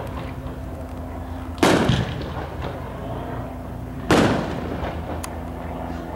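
Professional aerial firework shells bursting: two loud booms about two and a half seconds apart, each echoing away, with faint crackles after them.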